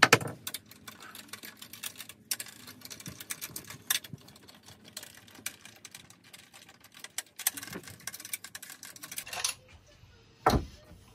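Ratchet wrench with a 10 mm socket clicking in quick, uneven runs as it backs out the bolts holding down a marine engine's flame arrestor. There is a sharp knock of metal at the start and another about ten seconds in.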